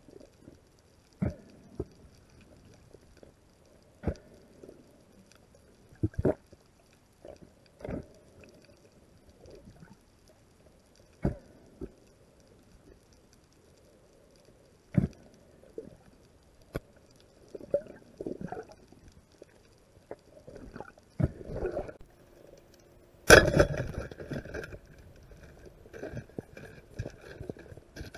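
Underwater sound through an action camera's waterproof housing during a freedive: scattered knocks and thumps every second or two. About 23 seconds in comes a louder sudden burst, followed by a few seconds of rushing, bubbly noise.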